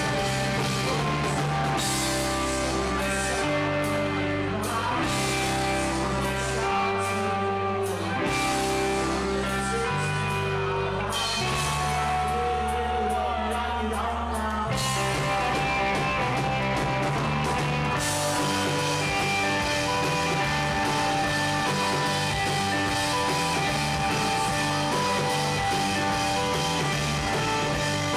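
A rock band playing live: electric guitar and bass over drums, with singing. The sound fills out about fifteen seconds in, and the cymbals grow brighter a few seconds later.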